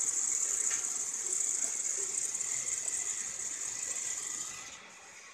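Steady high hiss of steam from a steam-jacketed mawa kettle working at full heat, with a faint click or two; the hiss fades down near the end.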